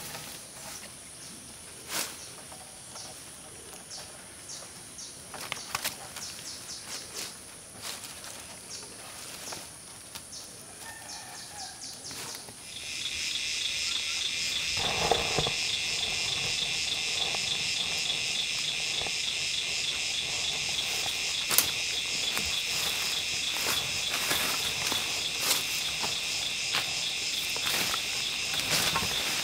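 Insects buzzing in the forest: at first one steady high-pitched buzz with scattered light taps and knocks. About 13 seconds in, a much louder chorus of several high buzzing insects takes over, with a brief rustle a couple of seconds later.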